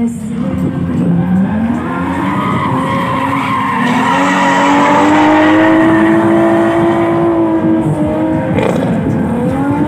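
Drift car's engine revving hard with its tyres squealing and skidding through a sustained sideways slide. The engine note climbs over the first few seconds, holds high, then drops near the end.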